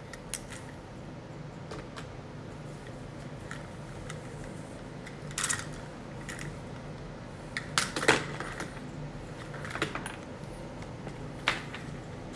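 Handling noise: a few scattered clicks and short rustles, the loudest cluster about eight seconds in, over a low steady hum.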